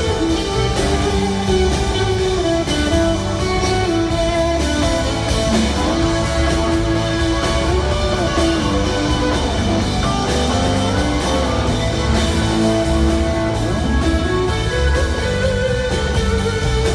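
Live rock band playing: an electric guitar plays sustained lead lines with bent notes over a steady drum kit.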